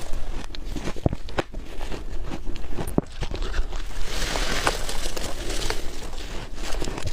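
Close-up bites into soft freezer frost: a dense run of crisp crunching and crackling as the frost is bitten through, thickest about four seconds in.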